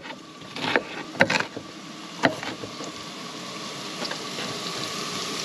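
A knife chopping an onion on a plastic cutting board, a few sharp chops in the first two seconds. Then carrots frying in oil in a cast-iron skillet, a steady sizzle.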